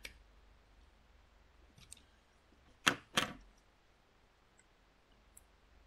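Sharp clicks of a knife and the hard plastic casing of a disposable vape being handled and pried apart: one click at the start, faint ticks near two seconds, then two loud clicks about a third of a second apart a little before three seconds in.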